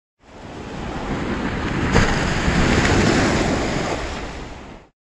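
Waves breaking as a rushing wash of surf that swells in, crashes sharply about two seconds in, then eases and cuts off just before the end.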